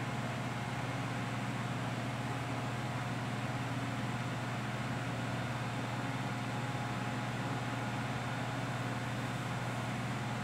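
Steady low hum with an even hiss and a few faint higher tones, unchanging throughout.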